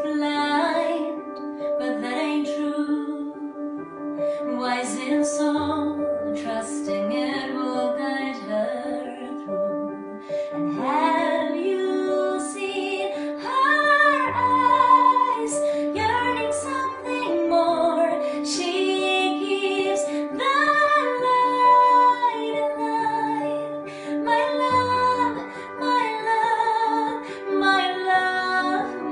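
A woman singing with long held notes, accompanying herself on a Roland RD-700NX digital stage piano.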